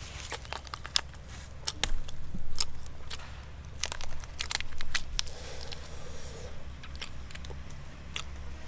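Crunchy biting and chewing of food: sharp irregular clicks and crackles, with louder crunching bursts about two seconds in and again around four to five seconds.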